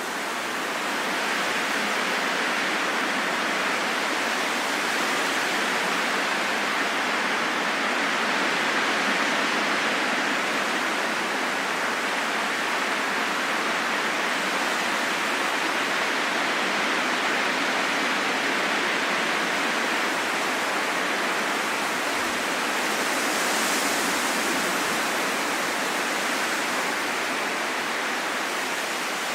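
Steady rushing wind, an even hiss that swells and eases only slightly, with a brighter gust a little past the middle.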